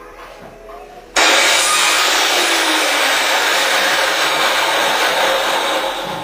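A loud, steady hiss of rushing air starts suddenly about a second in, holds for about five seconds and tails off near the end.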